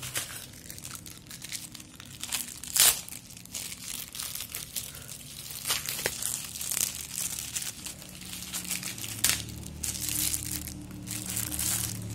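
Thin plastic packaging crinkling and tearing as a bubble-wrap pouch and plastic mailer bag are opened by hand. The rustles are irregular, with sharper crackles about three seconds in and again near nine seconds.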